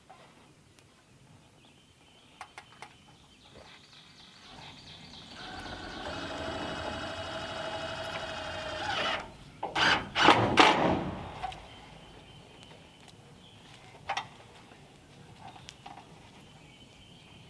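Power drill fastening the metal roofing: a steady whine from about five to nine seconds in, then a short burst of loud sharp hits around ten seconds. A few light clicks come before and after.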